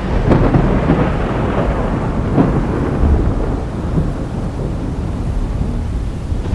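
Thunder: a sharp crack right at the start that rolls into a long rumble with crackles in its first few seconds, settling into a lower, steadier rumble. Rain hisses steadily underneath.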